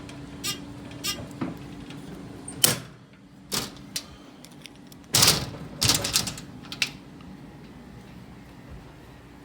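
A run of about a dozen sharp clicks and knocks from buttons being pressed and the unit being handled at a Simplex fire alarm control panel, the loudest cluster about five seconds in. A low steady hum under the first few clicks fades about three seconds in.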